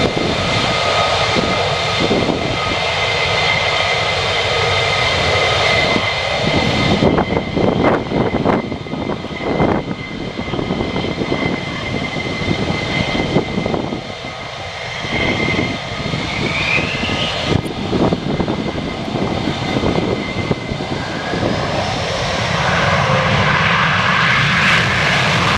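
F-15E Strike Eagle jets' twin engines running loud as the jets taxi and line up, with a steady high whine over the noise and a short rising whine midway. Near the end the noise builds as one jet goes to afterburner for its takeoff roll.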